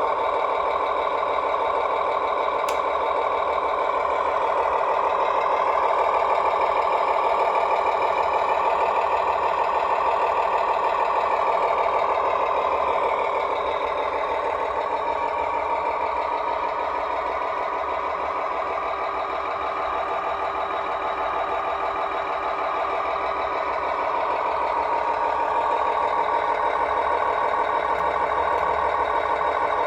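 Remote-control truck's sound module playing a simulated truck engine through a small speaker, running steadily with little bass. Its pitch rises and falls once, as if revving, about ten seconds in.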